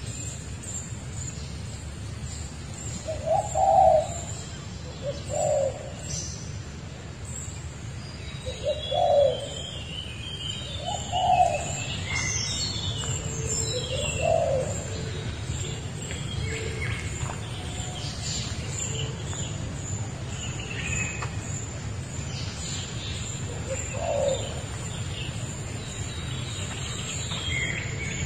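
Birds calling in forest: about six short low coos spaced a few seconds apart, with a spell of higher chirping and twittering in the middle, over a steady low background rumble.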